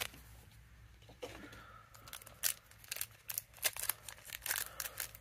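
Foil booster pack wrapper crinkling and crackling as it is handled in the hands: short, irregular crackles that start after about a second of near quiet.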